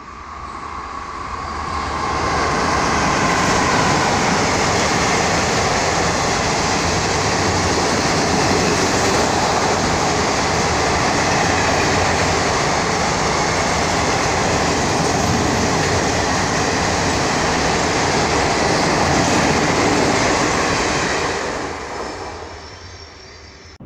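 Express passenger train hauled by a WAP-4 electric locomotive, with a rake of blue ICF coaches, passing at speed close by: a steady, loud rush of wheels on rails that builds over the first couple of seconds and dies away near the end as the last coach goes by.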